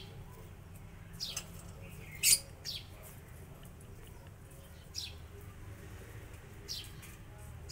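Short, high bird chirps, about five scattered through, each a quick falling note; the loudest comes a little over two seconds in.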